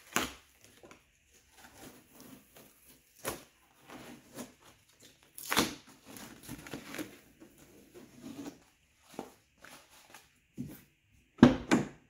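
Masking tape and cardboard being peeled and torn off a truck's door panel: scattered crinkling and ripping, with a louder rip about five and a half seconds in. Near the end the door handle is pulled and the door latch clunks open.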